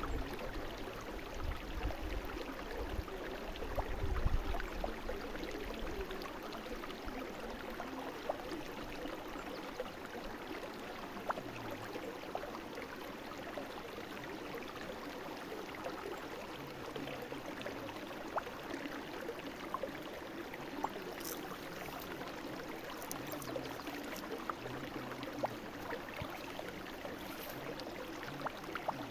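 A brook flowing steadily over stones, a continuous babbling and gurgling of water, with a low rumble in the first few seconds.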